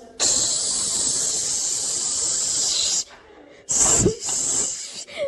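A long, loud hiss lasting about three seconds, followed by two shorter hisses.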